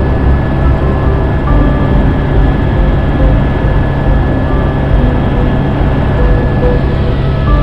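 Helicopter in flight: a steady, loud low throb from the rotor and engine with a constant high whine.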